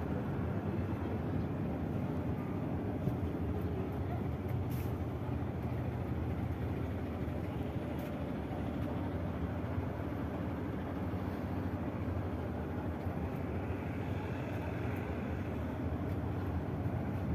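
Diesel engines of Scania heavy tank-transporter trucks idling, a steady low rumble with a few faint clicks.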